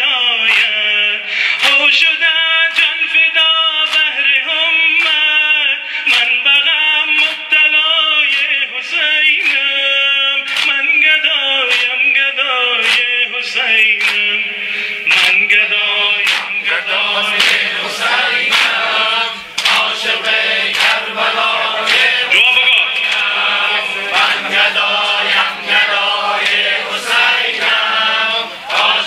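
Men chanting a Persian noha, a Muharram lament, as a group, over a steady beat of sharp chest slaps (sina zani).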